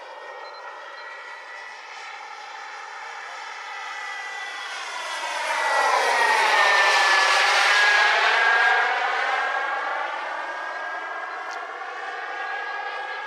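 Turbine engine of a radio-controlled Exocet model jet flying past: a jet whoosh with a high whistle that swells to its loudest about six to nine seconds in as the jet passes overhead, the whistle dropping slightly in pitch, then fades as it flies away.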